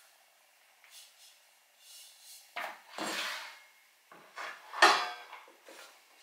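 Air fryer's nonstick basket pot and its housing being handled and fitted together: a few scrapes and rattles, with a sharp knock just under five seconds in.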